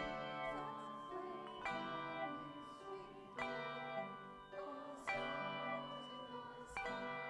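Slow hymn music: a chord struck about every second and a half to two seconds, each ringing on and fading before the next.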